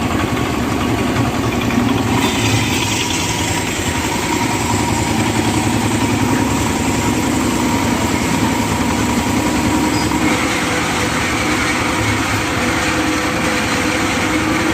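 Small engine running steadily with a rapid low chugging, at an even level throughout.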